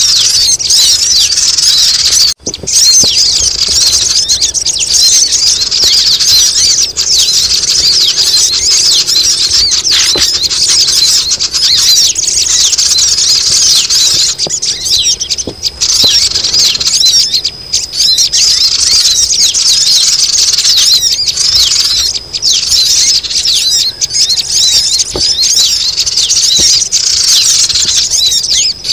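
Sogon (crimson sunbird) lure recording: a loud, dense chorus of high, quick chirping and trilling calls, meant to be noisy enough to draw wary sunbirds down. The calls break off briefly about two and a half seconds in.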